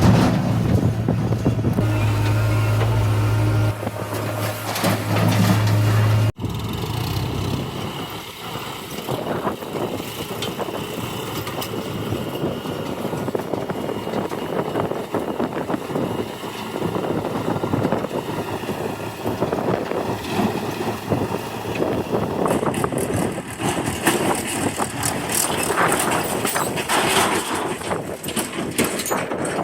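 Diesel engine of a JCB 3DX backhoe loader at work: a steady low hum for about six seconds, then after a sudden break a rougher, noisier running that rises and falls.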